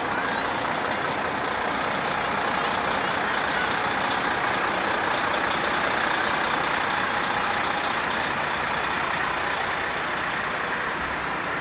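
A heavy truck's engine running as it passes, growing a little louder toward the middle and easing off near the end.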